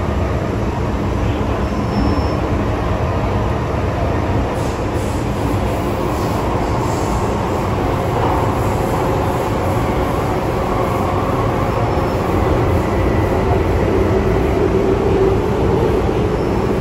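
MTR M-train electric multiple unit heard from inside the car while running through a tunnel: a steady, loud rumble of wheels on rail and running gear. Thin whining tones from the traction motors ride on top, with a higher whine entering about two-thirds of the way through.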